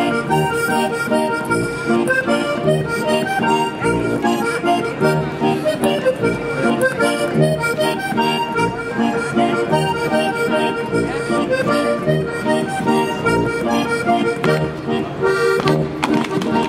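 German folk dance music led by an accordion, with a steady beat.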